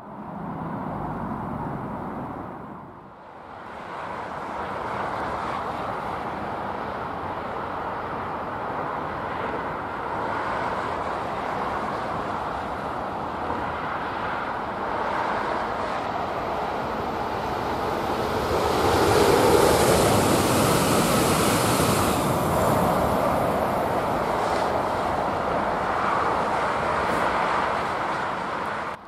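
Southeastern Class 395 Javelin high-speed electric train passing on the viaduct, a steady rush of wheel and air noise that swells to its loudest about two-thirds through. Road traffic from the parallel bridge runs underneath as a constant hum.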